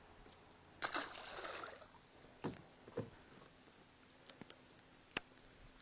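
A splash in the water about a second in, fading over about a second, then a few sharp knocks and clicks.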